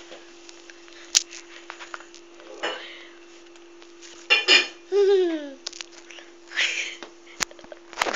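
A voice making short sounds, with one falling pitched call about five seconds in, among scattered clicks and knocks, over a steady low hum.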